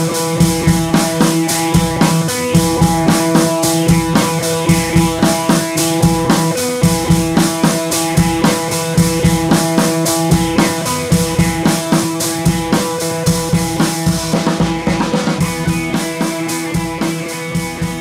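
Background music with a steady drum beat of about two strokes a second under held chords. A rising swell comes near the end, and the music then grows a little quieter.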